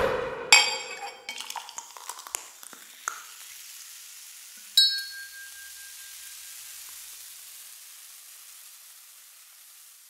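The tail of a New Year song: a flurry of tinkling, glassy chimes in the first second or so, then a single bright glass-like ding about five seconds in that rings out over a soft hiss fading away.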